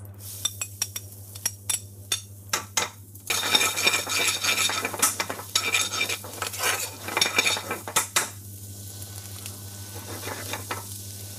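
Chopped ginger and garlic frying in hot oil in an aluminium pan: a metal spoon clinks and scrapes against the plate and pan, then a loud sizzle sets in about three seconds in, with a ladle stirring and clinking against the pan, and eases off near the end. A steady low hum runs underneath.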